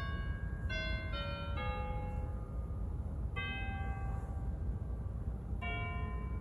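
Slow, chime-like keyboard music: a short falling run of ringing notes, then two single chords with long gaps between, each dying away. Underneath is a steady low rumble.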